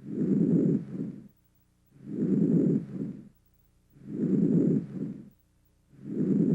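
Normal vesicular breath sounds auscultated over the lung fields: soft, low-pitched breathing, four breaths about two seconds apart. Each breath is a longer inspiration that runs straight into a shorter, fainter expiration, followed by a short pause.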